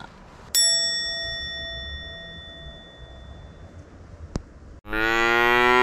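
Edited-in sound effects: a single bell-like ding about half a second in that rings out and fades over a few seconds, then near the end a long, low, steady 'bō' tone.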